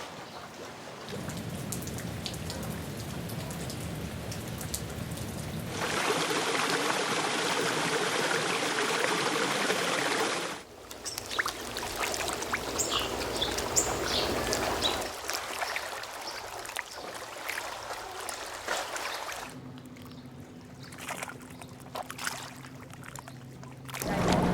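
A run of short outdoor ambience recordings cut one after another, each a steady background wash; the loudest, about six seconds in, is an even rush of water that stops abruptly about ten seconds in.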